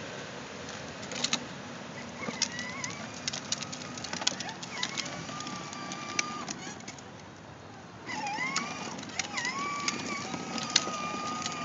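Plastic ride-on toy quad driving over gritty asphalt: many sharp clicks and crackles from its wheels over grit and twigs, with a wavering whine that dips, rises and holds steady. The whine is louder from about eight seconds in.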